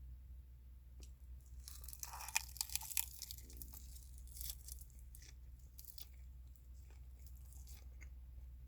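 A person chewing crunchy food close to the microphone: a dense run of crisp crunches about two seconds in, then scattered smaller crunches and clicks, over a steady low hum.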